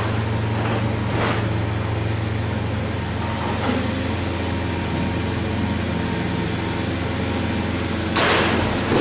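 Heavy demolition machine's diesel engine running steadily, with a short crunch of breaking material about a second in and a louder crash of falling debris near the end.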